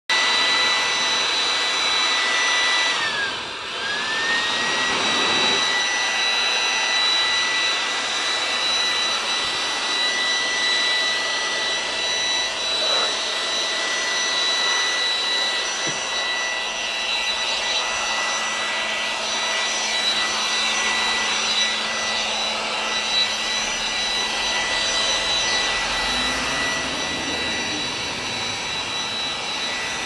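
Corded handheld electric blower running at full speed: a steady high motor whine over a rush of air. About three seconds in, the whine dips in pitch and loudness for a moment and then climbs back.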